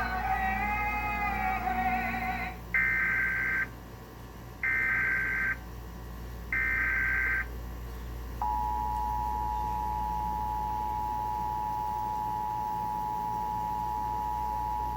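A song with singing cuts off about two and a half seconds in, followed by three roughly one-second bursts of Emergency Alert System SAME header data tones. Then, from about eight seconds in, the steady EAS two-tone attention signal sounds as a held dual-pitched tone.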